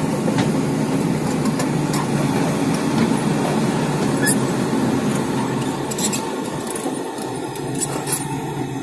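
Heavy construction-machine diesel engine running at a steady speed, with a few light clicks and rattles over it.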